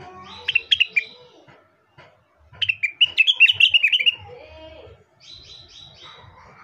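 Rengganis (cucak wilis) leafbird singing in three quick runs of sharp, rapid chirps, the loudest run in the middle.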